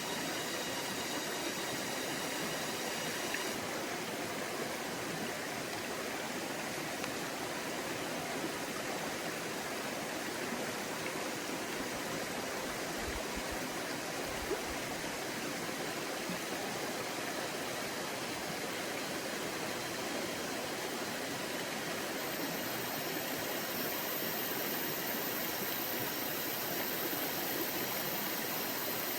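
Forest stream flowing, a steady, even rush of water.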